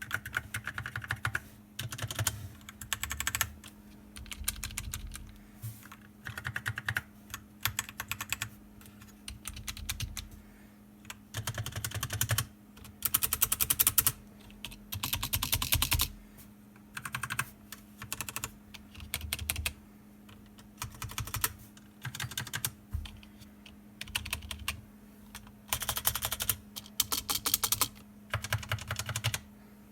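Typing on a computer keyboard: fast runs of key clicks in bursts of a second or two with short pauses between them, over a faint steady hum.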